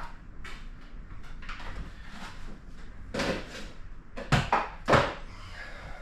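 A series of knocks and clunks of objects being handled and set down, the loudest ones close together between three and five seconds in.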